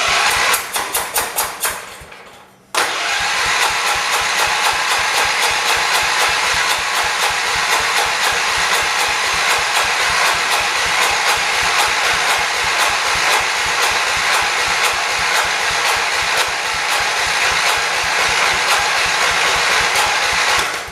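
1978 John Deere 208 lawn tractor's starter cranking the engine: a short burst of cranking, a brief stop about two seconds in, then a long steady crank with an even chugging beat that stops near the end. The engine tries but does not catch, a sign that it is not getting fuel.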